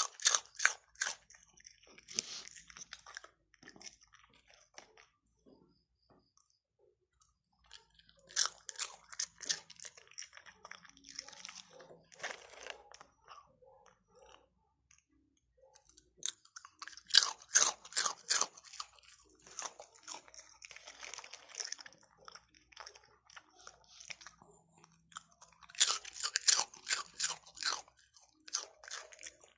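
A dog crunching and chewing hard, crunchy food close to the microphone. The loud crunches come in four bursts of quick bites, about eight to nine seconds apart, each fading into softer chewing with short pauses between.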